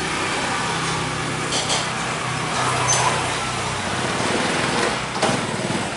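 A motor engine running steadily, with a low hum and a few short knocks and clicks over it.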